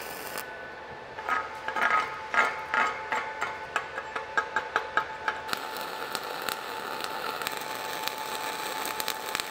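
Rapid ringing metal taps, about four a second, of a chipping hammer knocking slag off a fresh weld bead on steel plate; from about five and a half seconds in, the steady crackling hiss of a flux-cored wire-feed welding arc.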